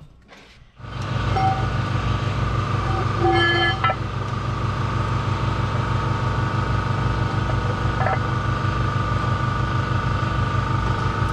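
An engine running steadily at idle, beginning about a second in, with a short higher tone about three to four seconds in.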